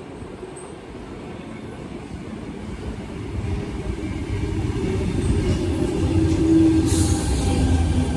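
Electric suburban passenger train pulling into the platform, getting steadily louder as it approaches. There is a short whine about six seconds in and a brief high hiss just after.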